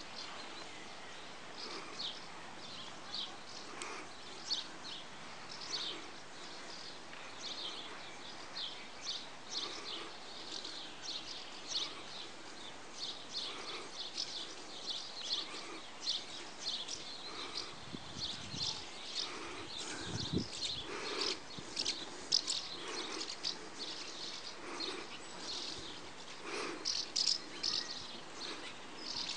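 Swallows chirping: a steady run of short, high twittering calls, a few a second, growing busier toward the end.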